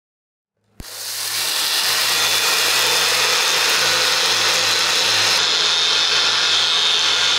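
Personal bullet-style blender motor starting with a click about a second in, then running steadily at full speed as it grinds dried sprouted wheat kernels into coarse flour.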